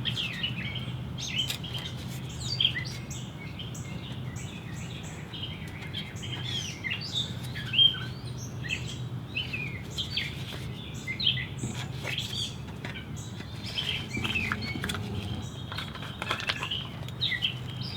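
Small songbirds chirping and calling, many short chirps and trills throughout, over a steady low hum.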